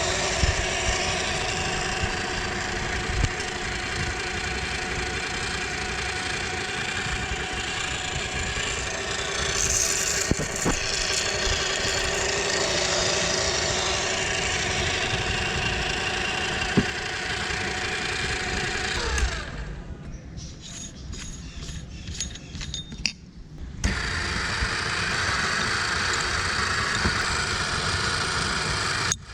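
Electric meat grinder motor running steadily while grinding candy-coated chocolates, with scattered clicks over the hum. Near the middle of the second half the motor winds down to a stop, leaving a few faint clicks, then starts up again at full speed about five seconds later.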